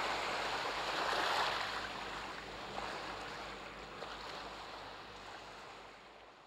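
Ocean surf washing: a steady hiss of small waves that slowly fades out.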